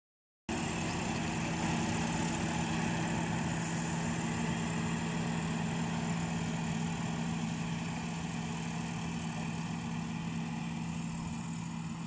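Rice combine harvester's diesel engine running steadily as it cuts through the paddy, growing slightly fainter as the machine moves away.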